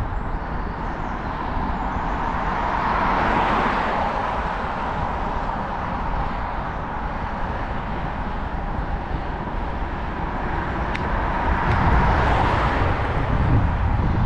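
Wind and road noise on a road bike's action camera while riding, a steady rumble and hiss that swells twice, about three seconds in and again near the end.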